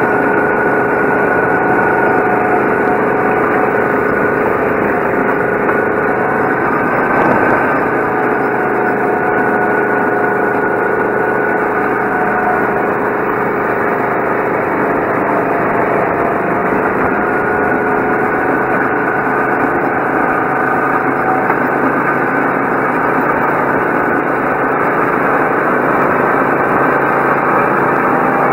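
Go-kart's small engine running steadily under way, heard from on board, its pitch dipping and rising a little through the corners. One brief knock about seven seconds in.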